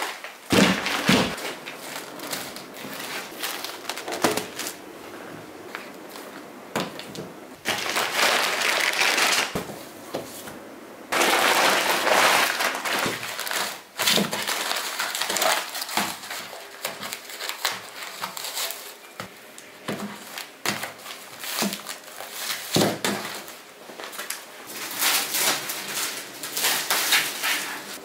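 Crinkling and rustling of a blue IKEA woven-plastic shopping bag being handled and folded flat on a wooden desk, in loud crackly stretches. It opens with a couple of knocks as the bag is set down.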